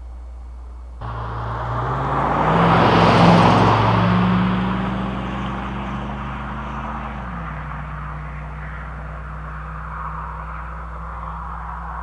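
A 5.3-litre LM7 V8 truck exhaust through a Cherry Bomb Salute straight-through muffler, starting abruptly about a second in as the truck accelerates past. The engine note rises in pitch and is loudest about three seconds in, then fades as the truck drives away, with the note dropping in pitch about seven seconds in.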